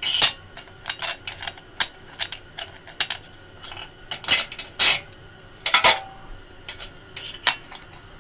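Small metal parts of a Briggs & Stratton engine's air cleaner clinking and clicking as they are handled and fitted: a threaded rod, nuts and the aluminium cover knocking together at irregular intervals. The loudest clinks come at the start and a little past the middle, one leaving a brief ring.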